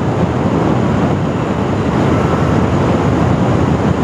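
Steady rush of wind and motorcycle engine noise on the rider's microphone while cruising at about 55 km/h, loud and even throughout.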